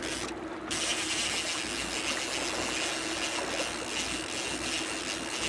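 Trolling boat's engine running steadily under a rush of wind and water, with a faint steady hum; a higher hiss comes in under a second in.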